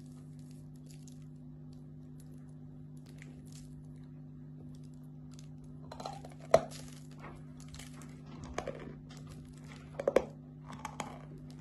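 Fingers rubbing and scratching over a big lump of chalk, with faint crumbling. About six seconds in, a sharp crack as a piece is bitten off. Then crunchy chewing of the chalk with more cracks near the end, over a steady low hum.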